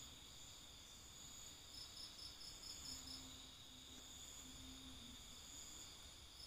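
Faint chorus of night insects, crickets, several steady high trills layered together, with one chirping in quick pulses of about six a second starting about two seconds in.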